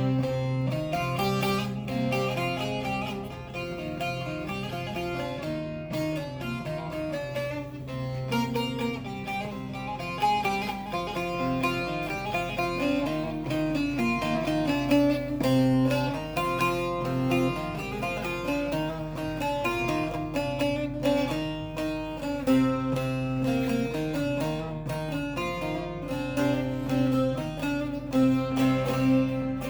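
Bağlama, the Turkish long-necked lute, played instrumentally: a plucked melody of short notes over a steady low drone.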